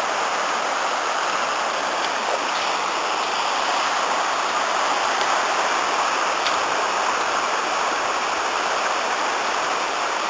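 River water rushing steadily over stones, the Afon Artro running high and full after a week of rain.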